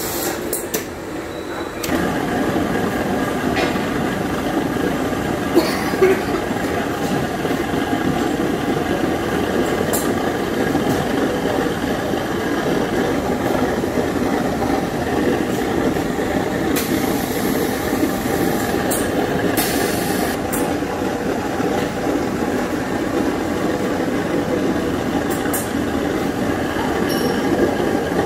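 Bottle shrink-wrap line running: a shrink tunnel's hot-air blower and roller conveyor giving a steady mechanical whir that gets louder about two seconds in. A few sharp clicks and knocks come at scattered moments.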